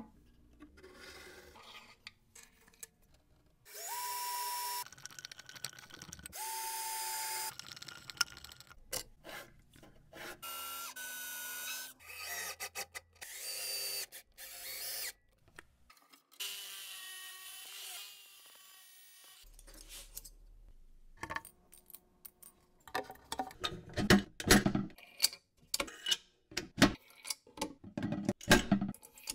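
Festool cordless drill-driver driving small screws in several short runs, its motor pitch rising as each run starts. Near the end comes a quick series of knocks and clicks, loud next to the drill.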